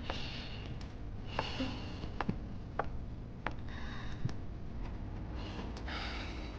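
A person breathing audibly, four breaths about a second and a half apart, with several light clicks in between.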